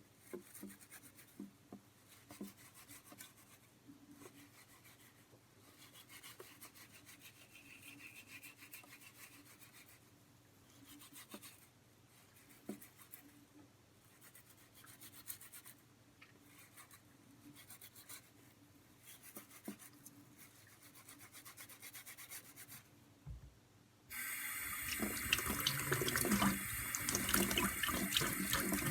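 Potatoes being scrubbed by hand, faint rubbing with small scattered knocks; near the end a kitchen tap is turned on and water runs loudly into the sink.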